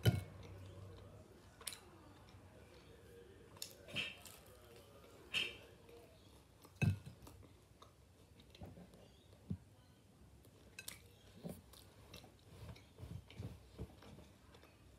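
A child chewing food close to the microphone, with scattered soft clicks and knocks every second or two.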